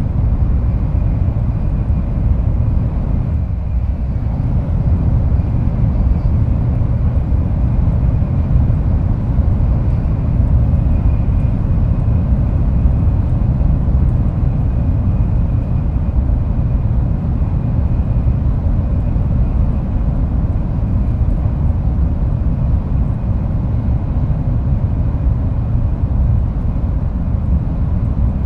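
Shinkansen train running, a steady low rumble and rush heard from inside the car by the doors, with a faint steady high whine above it.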